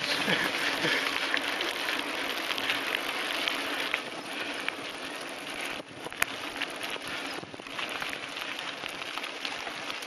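Mountain bikes rolling fast along a dirt track: a steady noise of knobby tyres on grit and gravel, with a sharp click about six seconds in.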